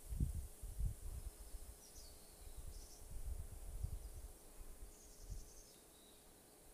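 Wind buffeting the microphone in irregular low gusts that die down near the end, with a few faint high bird chirps and a faint steady hum underneath.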